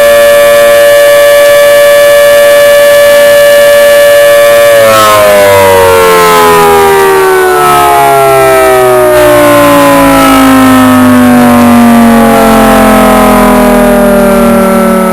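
Federal Signal 2T22 dual-tone warning siren sounding its monitored test: a steady, loud chord that, about five seconds in, begins winding down, its pitch falling steadily through the rest.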